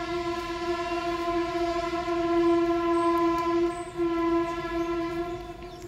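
A long horn-like tone held at one steady pitch, fading out near the end.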